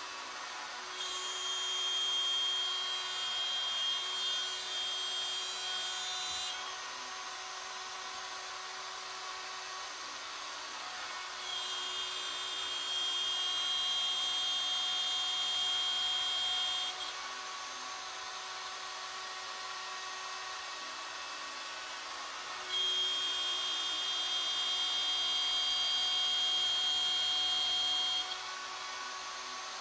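Router on a Legacy Ornamental Mill CNC, fitted with a two-flute straight cutter, running with a steady hum while milling a wooden leg blank. Three times it rises for about five seconds to a louder, higher whine as the bit cuts along the wood, with quieter running in between.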